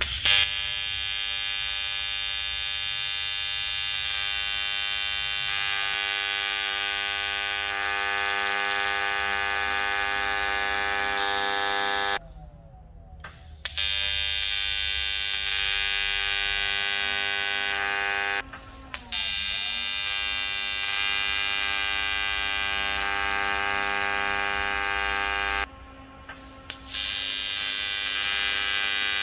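AC TIG welding arc on aluminium, a loud steady buzz. It cuts out three times for a second or so as the arc is broken, then strikes again.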